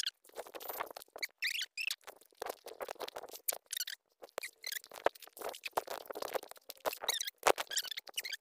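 Irregular footsteps and rustling as someone walks through grass and dry leaves, a string of short clicks and brushing noises with short high chirp-like squeaks among them.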